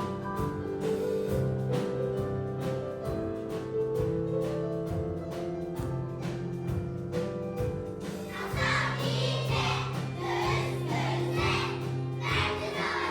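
Upbeat song playing: an instrumental passage with a repeating bass line, then a group of voices singing from about eight seconds in.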